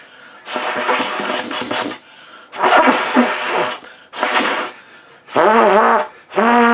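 Three breathy puffs of air blown through the lips, then soft low trumpet notes from about five seconds in: the first bends in pitch, the second is held steady. These are the calm, easy warm-up tones meant to loosen the embouchure.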